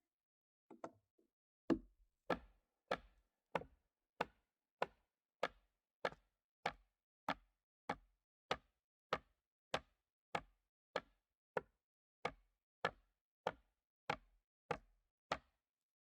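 Steady, evenly paced striking of a tool into wood as a log is hollowed out for a beehive: a couple of soft knocks, then about two dozen sharp blows, a little under two a second, that stop near the end.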